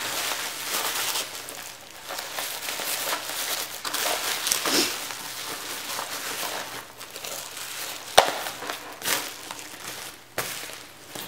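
Plastic bubble wrap crinkling and rustling as it is handled and pulled off a package, with one sharp click about eight seconds in.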